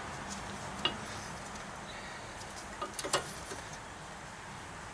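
Brake pads being worked out of a disc-brake caliper bracket: a light metallic click about a second in and a few more clicks and clinks around three seconds in.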